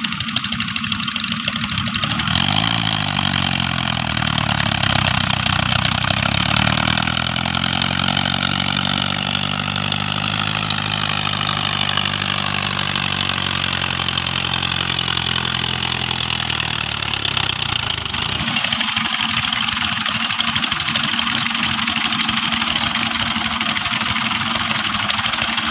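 Mahindra Arjun tractor's diesel engine working hard under load as it pulls a loaded trailer through deep sand. The revs climb and fall over many seconds, then settle to a steadier, rough running about 18 seconds in.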